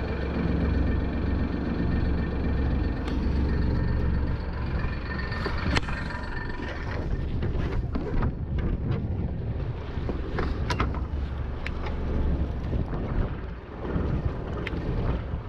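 Fishing boat's engine running steadily with wind on the microphone, and a few sharp clicks and knocks on board about halfway through.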